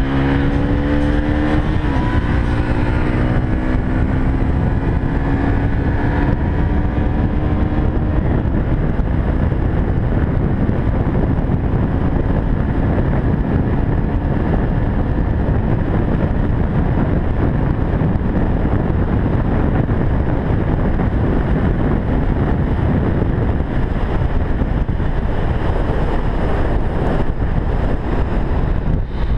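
Onboard sound of a Yamaha FZ16 motorcycle at speed: the single-cylinder engine note climbs under acceleration, with a gear change about two seconds in. After about eight seconds heavy wind rushing over the microphone covers the engine.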